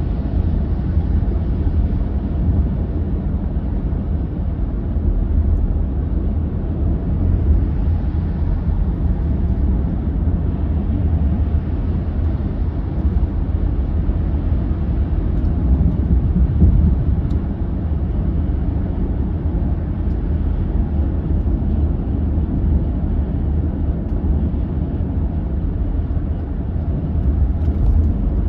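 Car interior road noise while driving at highway speed: a steady low rumble of tyres and engine heard from inside the cabin.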